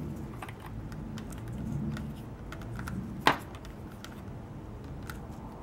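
Small scattered clicks and scratches of a metal pick working waxed saddle-stitch thread out of the stitch holes in a small piece of leather, with one sharper click a little past halfway.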